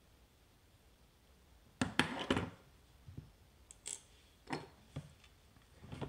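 Low room tone, then a quick cluster of knocks and clicks about two seconds in, followed by a few lighter single clicks: small objects being handled.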